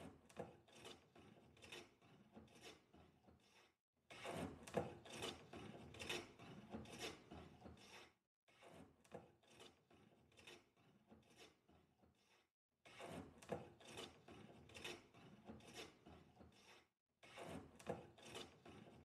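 Faint rubbing and scraping strokes, a few a second, in short stretches broken off abruptly by moments of silence.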